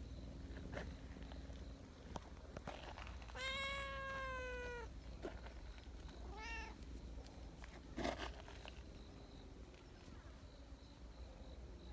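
Cats meowing: one long meow, its pitch dropping slightly at the end, then a shorter meow about two seconds later. A single soft knock comes about eight seconds in.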